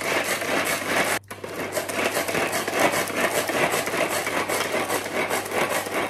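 A manual pull-cord mini food chopper being worked: its cord is yanked out again and again, spinning the blades and gears with a steady whirring rattle. There is one brief break about a second in.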